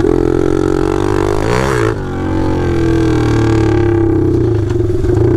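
Straight-piped Taotao DB17 125 pit bike's single-cylinder four-stroke engine running loud with no muffler, the pitch steady apart from a brief dip and rise about a second and a half in.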